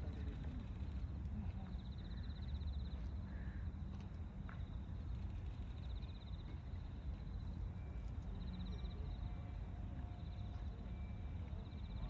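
Outdoor ambience: a steady low rumble with a short, high-pitched trill that recurs several times.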